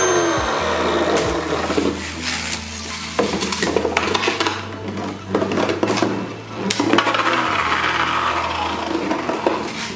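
Infinity Nado V metal spinning tops whirring and rattling in a plastic battle stadium, with repeated sharp clicks and knocks as they strike each other and the stadium wall. A falling whine dies away in the first half-second, just after the launch.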